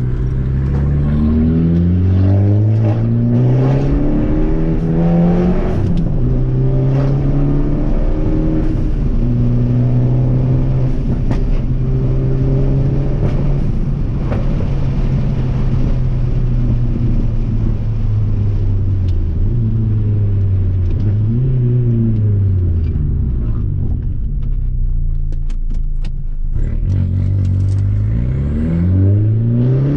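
Fiat 500 Abarth's 1.4-litre turbocharged four-cylinder engine pulling through the gears, its pitch climbing and dropping back at each upshift, then holding steady at cruise before easing off and picking up again near the end. Wind and road noise come in through the open windows.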